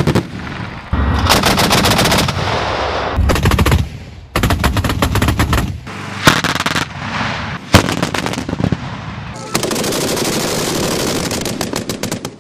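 Anti-aircraft autocannons firing in rapid automatic bursts, the shots coming in quick runs. Several short bursts are cut together one after another, each starting and stopping abruptly, and the longest continuous burst comes near the end.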